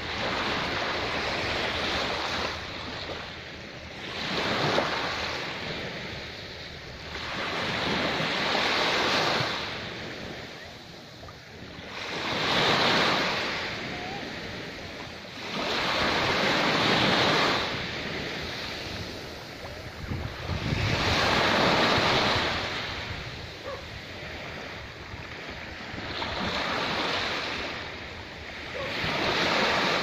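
Small waves breaking and washing up a sandy beach, the surf swelling and fading about every four seconds.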